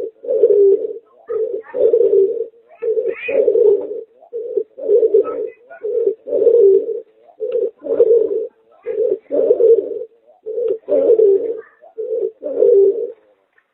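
Pigeon–dove hybrid (merpater) cooing over and over, low coos coming about once a second with short gaps between them.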